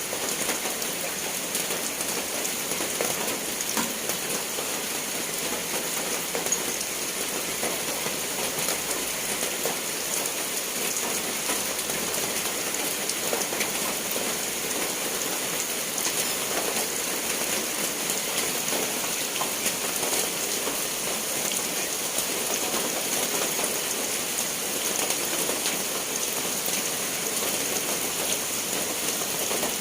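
Steady rain falling: an even, continuous hiss flecked with many small drop ticks, unchanging throughout.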